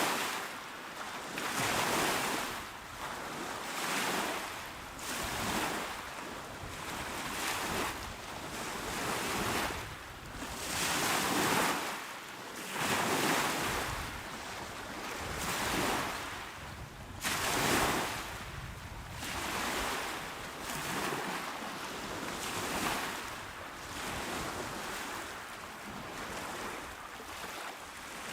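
Calm ocean waves breaking and washing onto the shore, a steady hiss of surf that swells and fades with each wave every couple of seconds.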